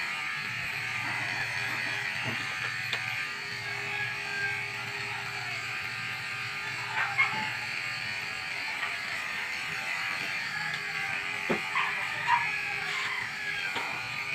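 Electric pet grooming clippers buzzing steadily as they trim a dog's coat, with a few short knocks and clicks partway through.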